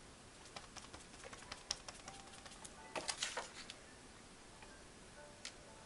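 Faint, irregular light taps and clicks of small craft tools and paper being handled on a tabletop, with a brief louder scuffle about three seconds in.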